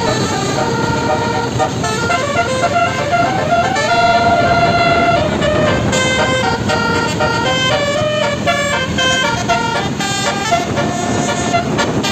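Basuri 12-note telolet bus horn playing a tune: a quick run of held notes stepping from pitch to pitch, over a steady noisy background.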